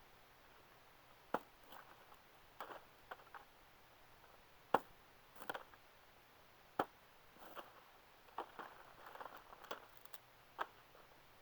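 Wood splitting with a pocket knife struck by a wooden baton: sharp, hard knocks at irregular intervals a second or more apart, with softer clicks and rustles of wood between them.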